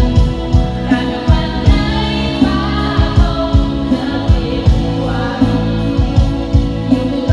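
Background music: a song with sung vocals over a steady, regular beat.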